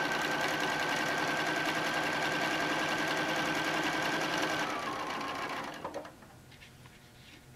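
Bernina electric sewing machine top-stitching at a steady fast speed, with a constant whine over the rattle of the needle. It slows about four and a half seconds in and stops about a second later.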